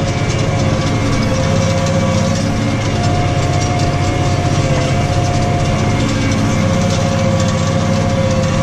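New Holland T6.155 tractor engine running steadily under load while ploughing, a constant low drone with a steady whine above it.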